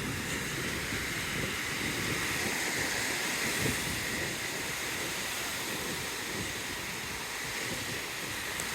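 Steady wash of small ocean waves on a beach, with wind rumbling on the microphone.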